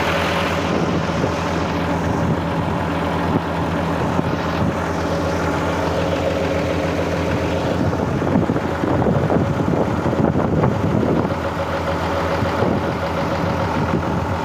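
Vehicle engine running at a steady speed with an even, rhythmic hum; it grows slightly louder for a few seconds past the middle.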